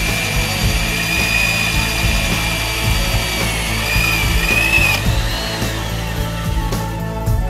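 Corded electric drill running as its bit bores into wood: a steady high motor whine that wavers slightly under load, then winds down about five seconds in. Background music plays underneath.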